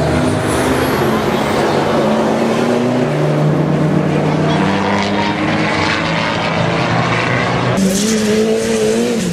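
Turbocharged race car engines running hard at high revs, heard close. The sound cuts abruptly to a different car near the end.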